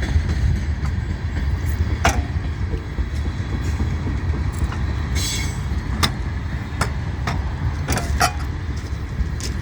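US&S M23B electric switch machine throwing the switch points over a steady low rumble, with several sharp metallic clanks and a short rattle about halfway through.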